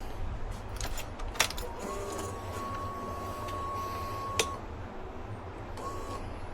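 A click about a second and a half in, then a steady high whine for about two and a half seconds that stops with another click, and a short whine again near the end. This fits a Suzuki GSX-R750's ignition being switched on and its electric fuel pump priming, on a bike that won't start.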